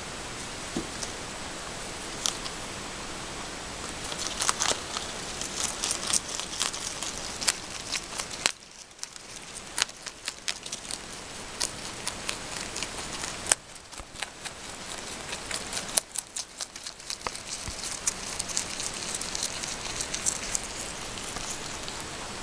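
Rabbit chewing sweet basil: rapid, crisp crunching clicks in quick runs over a steady hiss.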